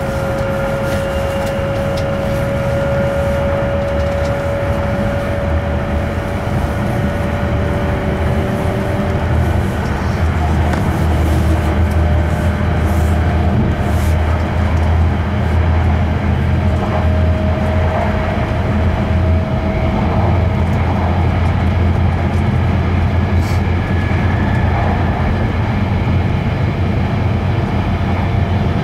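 Cabin running noise of an E5 series Shinkansen at high speed, heard from inside a passenger car: a steady low rumble with a faint whine that slowly rises in pitch, growing a little louder about ten seconds in.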